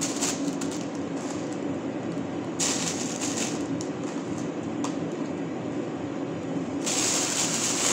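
Clear plastic bag rustling and crinkling as it is handled and filled with mussels and vegetables, loudest in a short burst about three seconds in and again near the end, over a steady fan hum.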